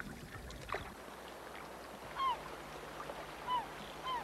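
A seabird calls three times in the second half, short down-slurred cries.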